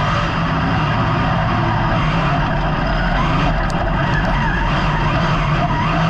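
Dirt-track race car's engine running hard at high revs, heard from inside the cockpit, with tyre and dirt noise as the car slides through a turn.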